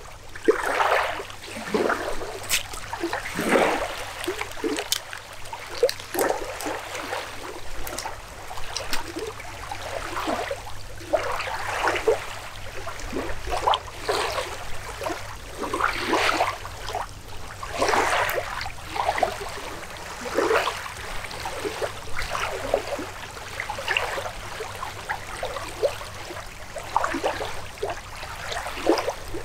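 Danube river water lapping at a sandy shore: small waves washing in with irregular splashy surges every second or two.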